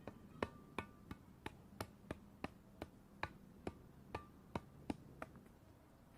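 A rapid, even series of sharp taps or knocks, about three a second, some with a brief ringing tone; they stop a little after five seconds in.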